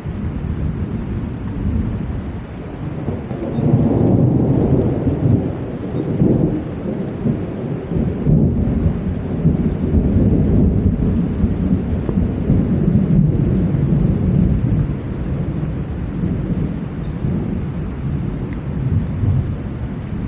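Heavy rain pouring steadily, with a long low roll of thunder that builds about four seconds in, rumbles on and slowly eases off.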